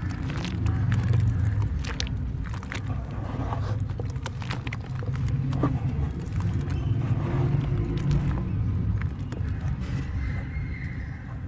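Hands squeezing and stirring soft wet dirt slurry in a plastic basin, giving many short wet squelches and splashes over a steady low rumble.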